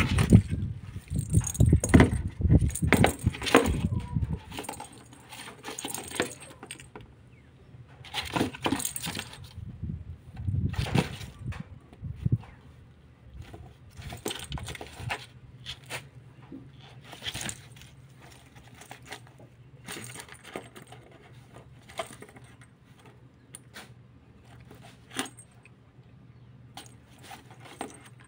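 A kitten batting a small perforated plastic bell ball around a cardboard box: the ball jingles and rattles in scattered spells, with taps and scratches on the cardboard. A low rumble sits under the first four seconds or so.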